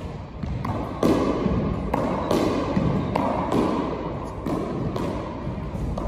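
Squash ball being struck repeatedly by a racket and smacking off the court wall: a run of sharp hits every half second to a second, echoing in the enclosed court.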